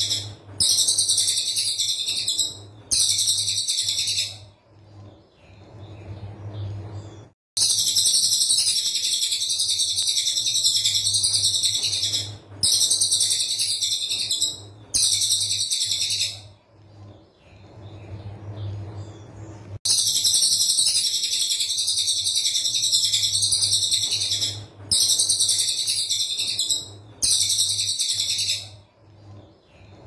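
Caged cililin coklat singing its tight rapid-fire bursts ('tembakan rapat'): dense, very high-pitched, buzzy runs of notes, each lasting one to five seconds and cutting off abruptly, in three clusters separated by short pauses. A steady low hum runs underneath.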